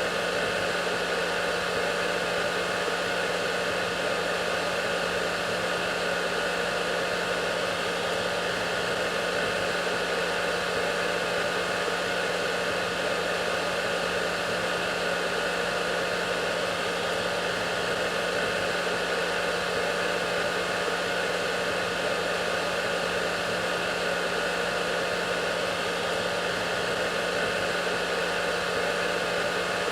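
Hair dryer running steadily: an even rush of blown air with a low motor hum and a few faint steady tones above it, unchanging throughout.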